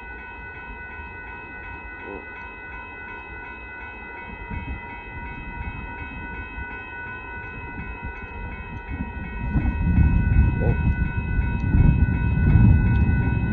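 Railroad grade-crossing bell ringing steadily while a train approaches. The train's low rumble builds and becomes loud about ten seconds in.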